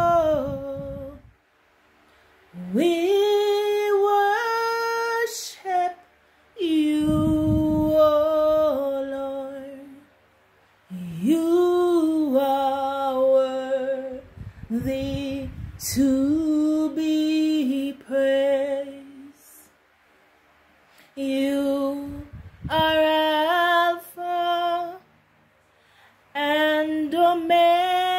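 A woman singing a slow worship song unaccompanied, in phrases of long held, sliding notes with short pauses between them.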